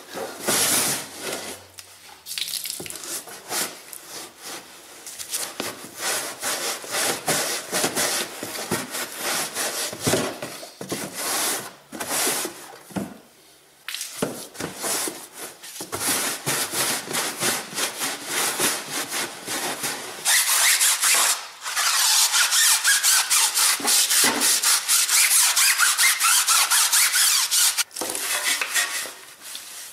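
Stiff bristle wheel brush scrubbing a soapy tyre sidewall and wheel arch in quick, uneven rubbing strokes. About two-thirds of the way through, a steady, loud hiss of spraying water takes over for about eight seconds and cuts off suddenly near the end, followed by more brushing.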